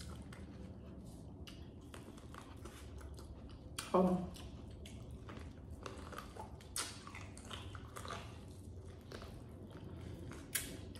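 Close-up mouth sounds of a person biting into and chewing seafood-boil food, with many small wet clicks and smacks. A brief "mm" sounds about four seconds in.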